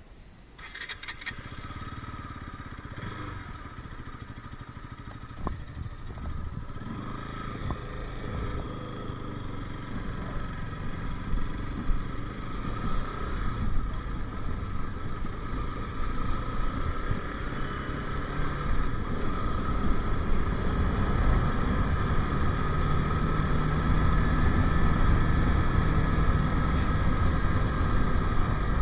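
Bajaj Pulsar RS 200's single-cylinder engine running. A brief rattle comes about a second in, where the sound begins, and the engine then grows gradually louder.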